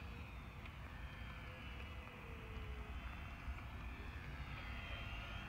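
Small radio-controlled airplane's motor whining as it flies overhead, its pitch slowly rising and falling, over a low rumble of wind on the microphone.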